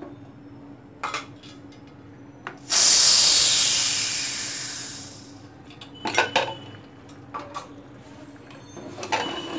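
Pressure cooker venting: steam hisses out of the valve as the weight is held down with a spatula. It starts sharply about three seconds in and dies away over about two seconds as the leftover pressure escapes. Metal clanks follow as the cooker's lid is twisted loose and lifted.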